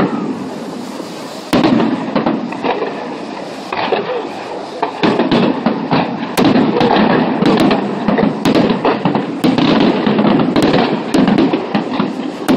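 Fireworks display going off: a loud bang about a second and a half in, then from about five seconds on a rapid run of bangs and crackles over a rumble.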